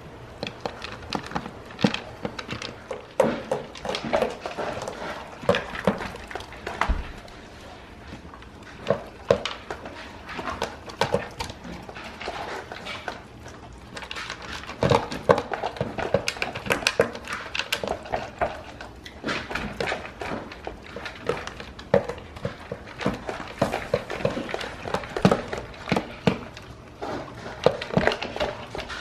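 A dog eating dry kibble from a plastic Fun Feeder slow-feeder bowl: irregular clicks and clatters as kibble and teeth knock against the plastic ridges, mixed with chewing.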